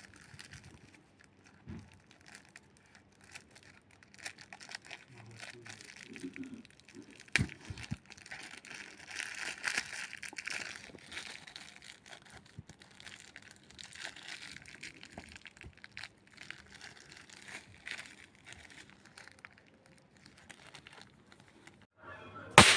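Blind-bag packaging crinkling and rustling as it is handled and opened, with scattered small clicks throughout. A sharp tap comes about seven seconds in, and a much louder sharp snap near the end.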